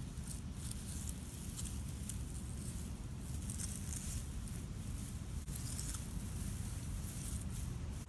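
Grass blades rustling and crackling faintly as a hand brushes and presses through them, over a steady low rumble.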